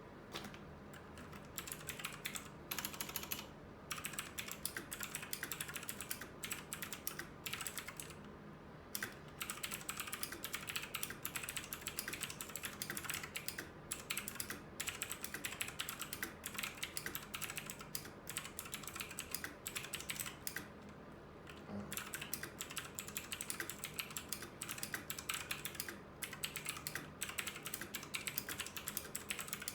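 Typing on a mechanical keyboard with blue Outemu clicky switches: a fast, continuous run of sharp key clicks, broken by a few short pauses.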